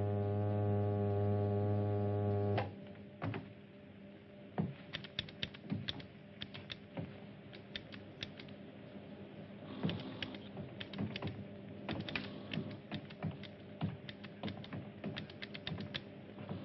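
Science-fiction spaceship bridge sound effects: a loud electronic buzz for about two and a half seconds cuts off, leaving a steady machine hum under rapid, irregular clicking and ticking of control consoles, which grows denser about ten seconds in.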